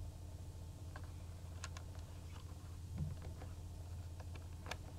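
Scattered faint clicks and light taps, more of them near the end, from Maine Coon kittens moving about on a hard floor, over a steady low electrical hum.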